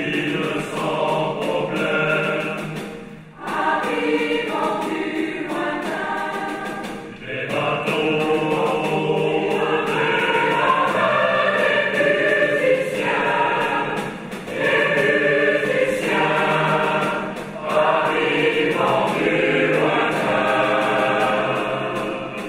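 Large mixed choir singing a contemporary choral work with a string orchestra, in long phrases broken by brief pauses.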